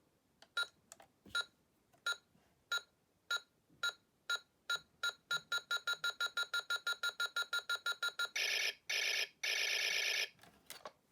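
Electronic beep sound effect from a Buzz Lightyear talking toy's speaker: short beeps that speed up into a rapid run, then two long buzzing tones near the end.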